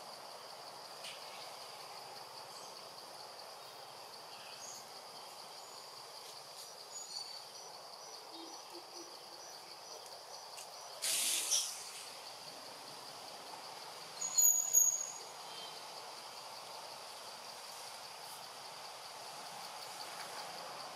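Forest ambience: a steady high-pitched insect drone, broken by a short burst of noise about eleven seconds in and a brief, loud high chirp a few seconds later.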